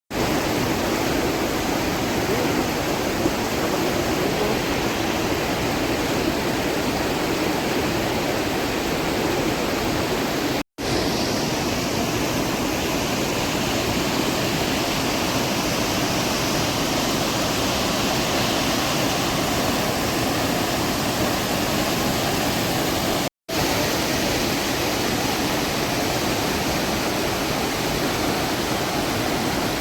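Steady rushing of river water, a dense even hiss with no separate splashes. It drops out for a split second twice, about eleven and twenty-three seconds in, where recordings are joined, and after the first break the rush is brighter and hissier.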